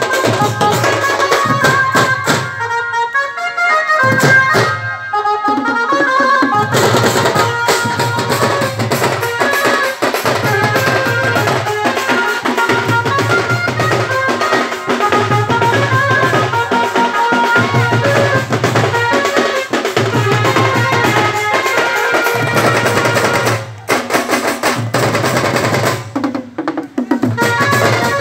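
Loud band-party music: a drum troupe beating marching tom drums in a driving rhythm, with a melody line playing over it. The music breaks off briefly twice near the end.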